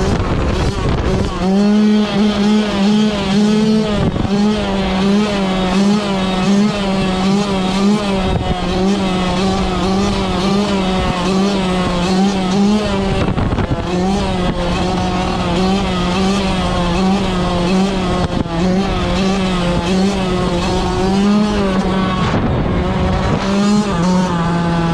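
Yamaha YZ125 single-cylinder two-stroke dirt bike engine running hard at high revs while ridden, its pitch held high and wavering slightly with the throttle. About a second in it climbs to speed, and near the end the pitch falls as the throttle is eased.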